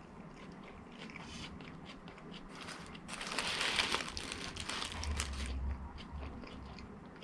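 Fast-food paper packaging being handled, rustling and crinkling, loudest about three seconds in. A dull low bump follows about five seconds in.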